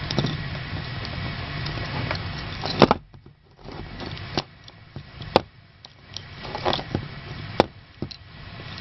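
A bicycle chain and chain tool being handled, with scattered sharp clicks and taps, the loudest about three seconds in. A steady background noise drops away at that moment.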